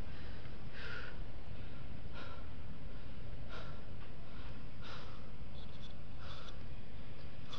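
A climber's heavy breathing close to a body-worn microphone: five breaths, about one every second and a half, from the effort of climbing. A steady low rumble runs underneath.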